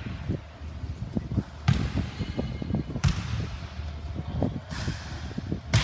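Ball play on a hard court: four sharp cracks of a ball striking hard surfaces, with low thuds of bouncing and footsteps between them.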